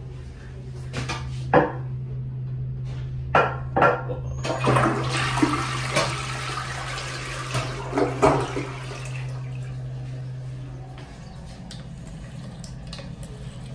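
Tank toilet flushing: a few clicks and knocks, then a loud rush of water swirling down the bowl for about four seconds, easing into quieter running water. A steady low hum runs underneath.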